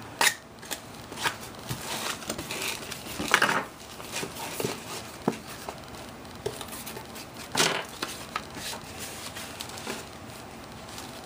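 Cardboard box and paper packaging being handled and opened: scattered rustles, scrapes and light clicks, with louder swishes about a third of a second in, around three and a half seconds in, and near seven and a half seconds in.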